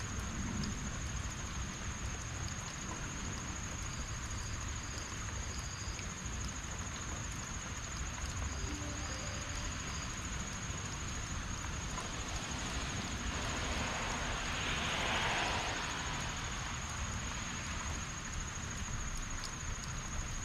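Steady heavy rain falling on grass, trees and pavement, an even hiss with a low rumble beneath. A constant thin high-pitched whine runs over it, and a louder rush of hiss swells and fades about two-thirds of the way in.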